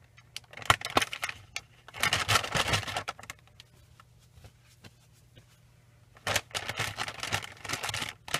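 Plastic baby-wipes package being handled as a wipe is pulled out one-handed: irregular clicks and crinkling in two spells, with a quiet pause of about three seconds in the middle.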